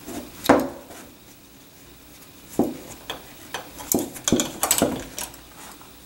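A leather belt being tied around a metal lever door handle: a series of irregular clinks and knocks of metal on metal, the loudest about half a second in and most of the rest bunched in the second half.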